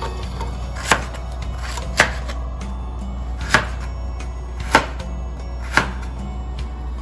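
Chef's knife slicing fresh ginger on a plastic cutting board: five sharp knocks of the blade on the board, roughly a second apart.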